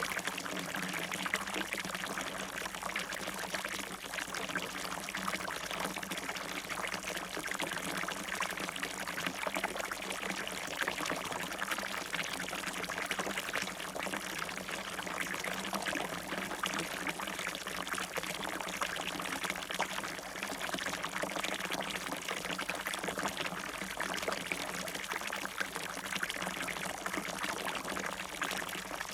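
Water falling and splashing in a fountain, a steady continuous pouring and trickling.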